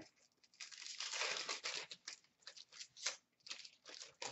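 Plastic wrapper of a 2017-18 Upper Deck hockey card pack being torn open and crinkled by hand: a longer tearing rustle in the first couple of seconds, then a series of short crackles as the wrapper is pulled off and crumpled.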